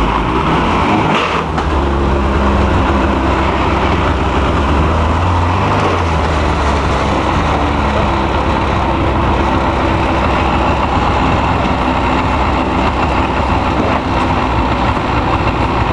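Ski-Doo snowmobile engine running steadily, pulling a little harder for a couple of seconds a few seconds in.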